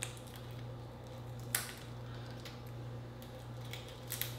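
Shell of a grilled giant shrimp being pulled apart by hand, with a few short crisp cracks, one about a second and a half in and another near the end, over a steady low hum.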